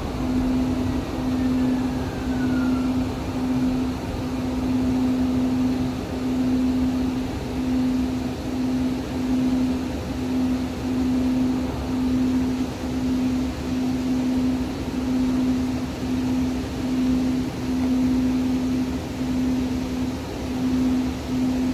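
Interior running noise of a Siemens light-rail car under way: a steady low hum that cuts out briefly every second or so over a rumbling hiss, with a faint falling whine about a second in.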